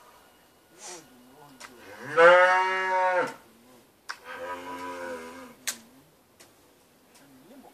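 Young ram lamb bleating twice: a loud call of a little over a second, then a softer, shorter one.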